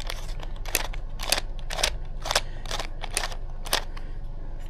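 Sharp plastic clicks and snaps, about ten of them at irregular spacing, as a screwdriver pries open the back cover of a Blink Outdoor 4 security camera to reach its battery compartment.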